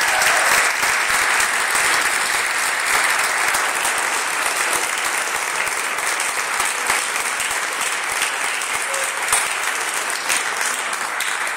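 Audience applauding: many people clapping together in a steady round that eases off slightly toward the end.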